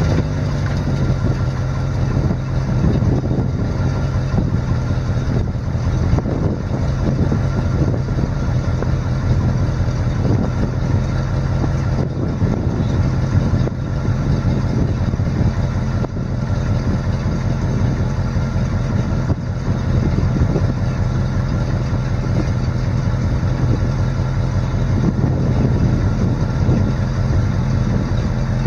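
International 1600 truck's 345 cubic-inch V8 gas engine idling steadily.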